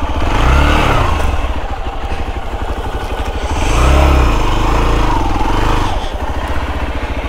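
Hero XPulse 200's single-cylinder engine running under way at low speed, with two swells of throttle where the engine note rises and falls: a short one about a second in and a longer one from about three and a half to six seconds in.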